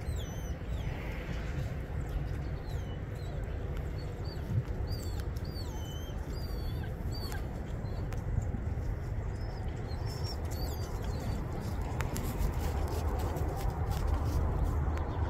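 Small birds chirping, many short high whistled notes that slide up and down, thick at first and thinning out in the second half, over a steady low rumble.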